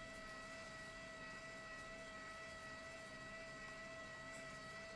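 Tosaden streetcar's onboard electrical equipment giving off a faint, steady high whine over a low hiss while the tram waits at a stop.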